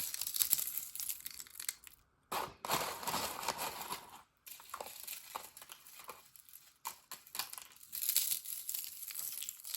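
Crisp beetroot fasting crackers being broken up by hand and sprinkled, an irregular crackling and crunching with many small snaps.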